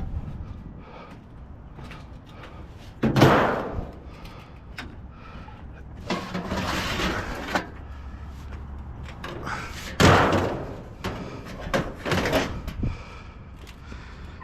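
Two loud slams about seven seconds apart, with shuffling and handling noise between them.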